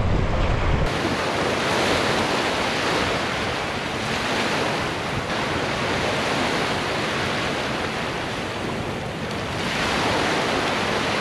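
Small waves breaking and washing up onto a sandy beach in a steady wash, swelling a couple of times as sets come in.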